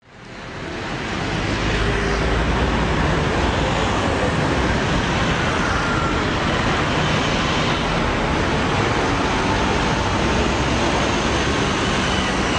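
Busy city street traffic: cars and motor scooters passing close by, a steady rush of engine and tyre noise. It fades in over the first second or so.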